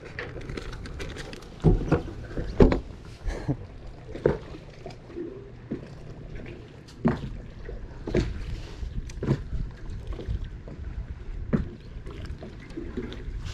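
Scattered knocks and thumps of handling and moving about on a bass boat's deck, with fishing rods and gear bumping the hull, a dozen or so at uneven intervals over a steady low background noise.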